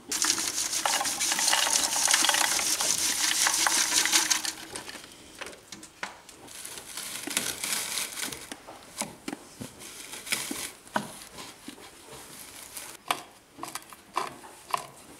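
Lumps of charcoal clattering and crunching among the steel teeth of a homemade charcoal grinder: a dense burst of crackling for the first four seconds or so, then scattered cracks and clicks.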